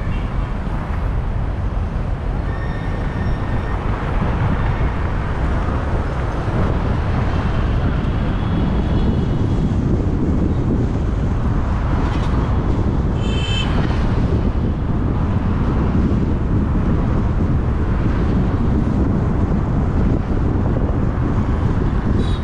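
Steady road and engine noise of a car being driven, with a brief high-pitched squeal about thirteen seconds in.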